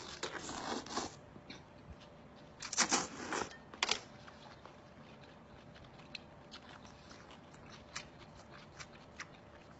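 Mouth sounds of someone eating shellfish with her hands: a few short slurps and sucks in the first four seconds, then faint chewing and small clicks.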